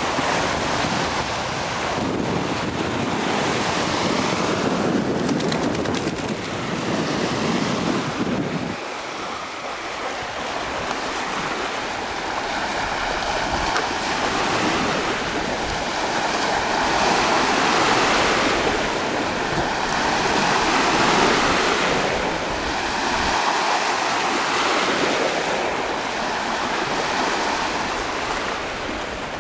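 Lake waves breaking and washing on the shore, swelling and fading every few seconds. Low wind rumble on the microphone drops away about nine seconds in.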